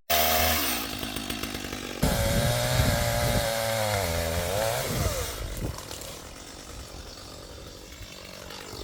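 Chainsaw engine running, its pitch wavering up and down, then dropping to a quieter level about five seconds in.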